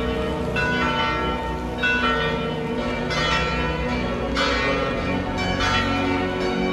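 Bells struck in slow succession, about one stroke a second, each stroke ringing on over a steady low drone.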